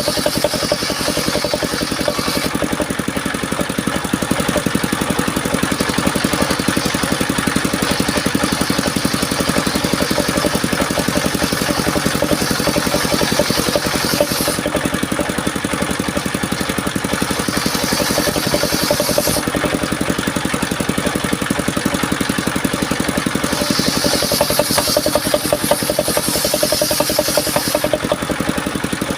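Engine-driven circular sawmill running steadily, its engine firing in a fast even beat throughout. A higher hiss comes and goes in several stretches of a few seconds each, as the blade cuts through mahogany.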